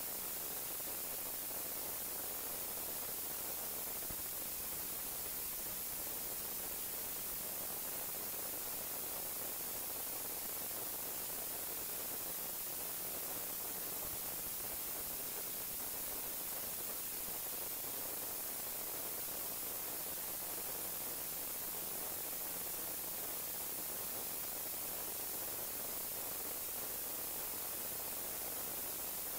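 Steady electronic hiss with a faint low hum underneath. No distinct sounds from the work stand out.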